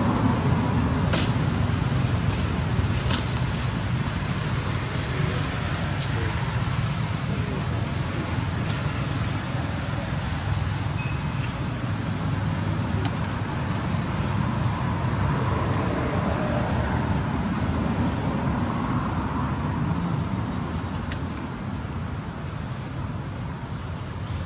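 Steady low outdoor background rumble, with a few faint clicks and two brief high, thin chirps about seven and ten seconds in.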